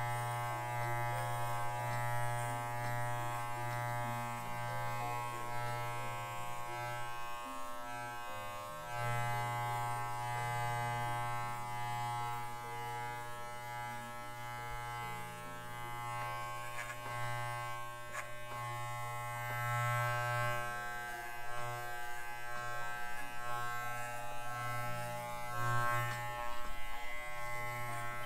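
Corded electric dog clippers buzzing steadily as they trim a dog's fur, the level rising and falling a little as the blade works through the coat.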